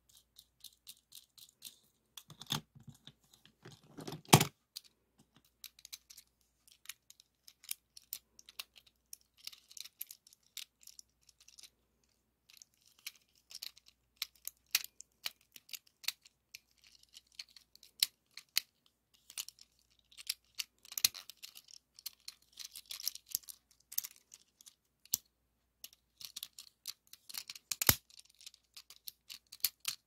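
Hard plastic toy parts clicking, snapping and scraping as a transforming toy car is turned and folded by hand close to the microphone. There are a few louder knocks, the loudest about four seconds in.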